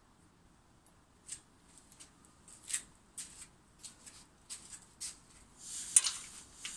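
An irregular run of short, light rustles and clicks, about a dozen over four seconds, bunching into a denser, louder rustle near the end.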